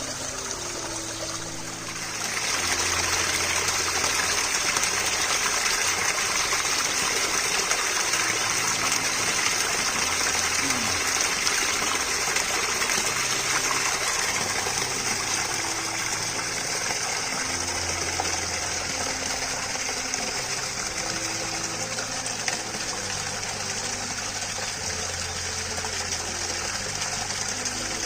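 Steady rush of running water, growing louder about two seconds in and then holding.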